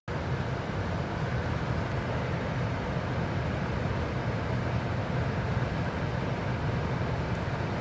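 Steady low road rumble and engine hum heard from inside a moving car.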